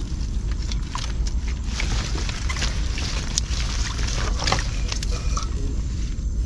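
Water sloshing and water hyacinth stems and leaves rustling as a wire-mesh fish trap is handled in the water, with crackles and small splashes over a steady low rumble.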